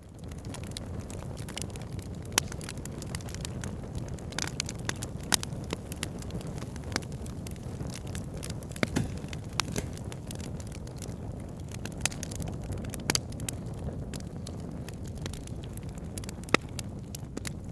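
Wood fire burning in a fireplace: a steady low rush of flames with sharp crackles and pops scattered throughout, the loudest pop near the end.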